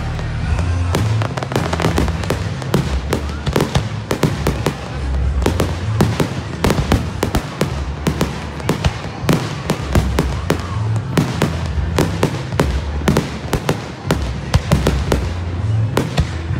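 Aerial fireworks shells bursting in quick succession, a dense string of sharp bangs and crackles, over music with a deep bass line.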